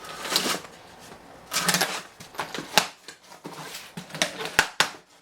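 Rustling and a few sharp clicks and taps of gear and packaging being handled and unpacked.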